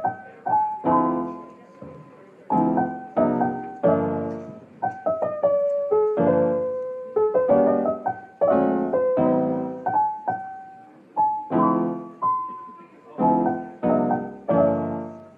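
Background piano music: slow chords and single notes, each struck and left to ring and fade, about one a second.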